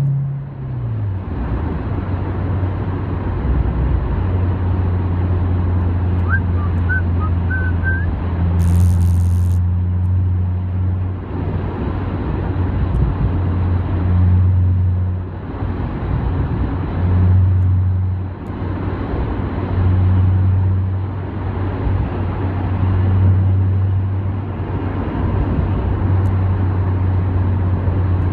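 Car engine and tyre noise heard inside the cabin while cruising on a freeway: a steady low engine drone that swells and fades every few seconds over road rumble. The engine note drops in pitch right at the start.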